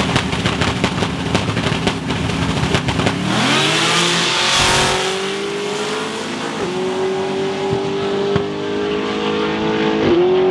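A car engine runs with a dense crackle, then revs up about three seconds in and holds at a steady high pitch. A hiss swells briefly just after the rev-up, and the note dips briefly twice later on.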